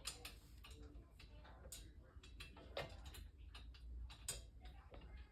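Faint, irregular clicks and taps of small metal screws and steel frame parts being handled as the screws are threaded in loosely by hand.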